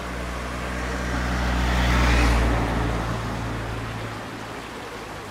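A van drives past, its engine hum and tyre noise swelling to a peak about two seconds in and then fading away.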